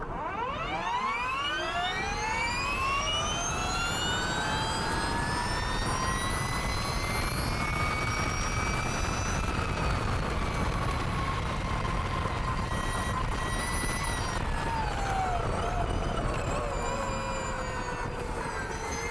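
Ducati V21L electric racing motorcycle accelerating hard from a standing race start: its electric motor and drivetrain whine rises steeply in pitch, keeps climbing more slowly, then drops away about three-quarters through as the bike brakes for the first chicane. Wind rush runs underneath.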